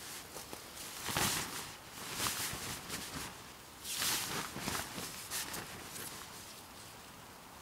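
Hammock fabric rustling and swishing as it is pulled and shaken while being hung from a tree, in a few bursts, the loudest about a second in and about four seconds in, settling down near the end.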